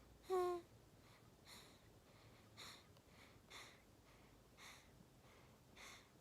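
A days-old newborn snoring in its sleep: a short squeaky note about half a second in, then five faint snuffly breaths about once a second.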